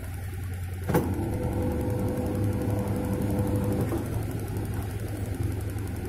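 LG WF-T7012EN top-loading washing machine running with a steady motor hum. A sharp click about a second in is followed by a steady whine for a little over two seconds. The machine is running after its rusted lid-switch magnet, the cause of its dE error, was glued back in place.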